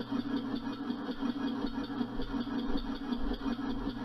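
Homemade prototype oval compressed-air engine, with a rotating centre valve, running on compressed air at about 110 psi with a fast, even mechanical beat.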